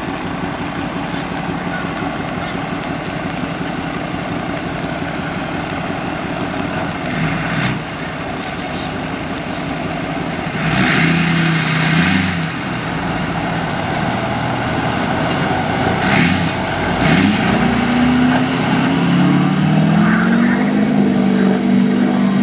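Heavy tow truck's diesel engine idling steadily, then revving up: a brief rise about eleven seconds in, then climbing from about seventeen seconds and held at high revs, the engine under heavy load as it drags a stuck pickup through floodwater on its cable.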